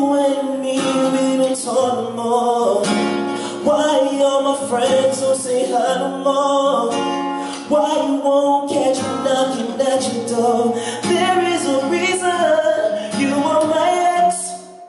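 Man singing a slow, emotional song live over acoustic guitar, his voice wavering through long held phrases, with a short break in the sound near the end.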